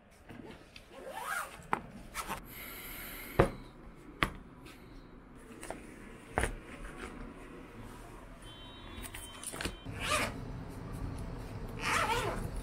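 Padded cases and a laptop sleeve being handled and packed on a wooden desk: rubbing and rustling of fabric, with a few sharp knocks, the loudest about three and a half seconds in.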